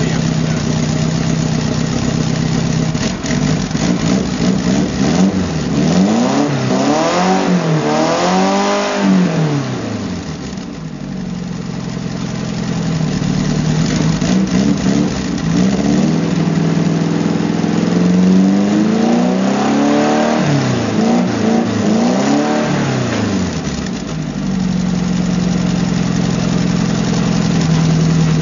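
Citroën Axel 1.3-litre air-cooled carburetted flat-four engine idling steadily, then revved in two runs of repeated rising and falling blips, one from a few seconds in and another past the middle, dropping back to a steady idle between them and near the end.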